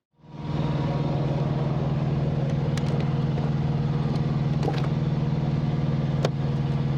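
Heavy diesel truck engine idling with a steady low hum, with a few light clicks along the way.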